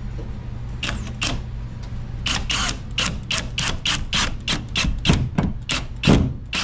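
Cordless drill driving screws through a drywall patch, a quick run of sharp clicks at about five a second.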